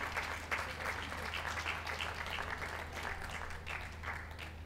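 Audience applauding, the clapping thinning and fading out near the end.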